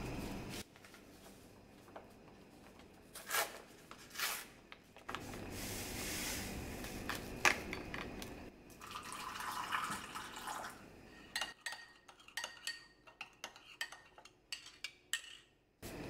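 Kitchen clatter of dishes and utensils: a few separate knocks and scrapes, then a run of quick light clinks over the last few seconds, a utensil against a small ceramic jug while powder is dissolved in it.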